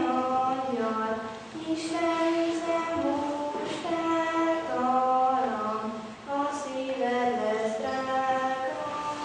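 A choir of girls and women singing a Christmas song with long held notes that move step by step.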